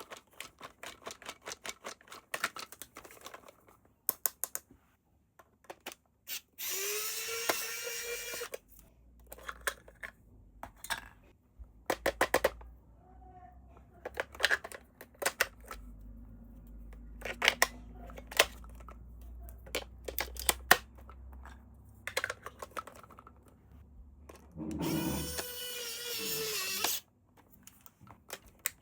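Electric toy being handled and switched on: many sharp plastic clicks and rattles, and a low small-motor hum through the middle. Twice an electronic sound effect with a gliding tone plays for about two seconds.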